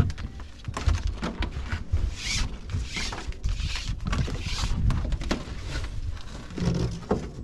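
Padded nylon buckle tie-down straps being handled: webbing rustling and sliding through the hands, buckles clicking and knocking, with a sharp knock right at the start. A low rumble of wind runs under it on the microphone.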